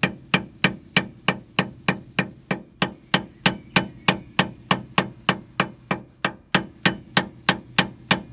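Club hammer tapping a steel kingpin bearing into the bottom of a Suzuki Jimny's swivel hub, even light blows about three and a half a second, each with a short metallic ring. The blows have the hollow twang of a bearing still going in, not yet seated.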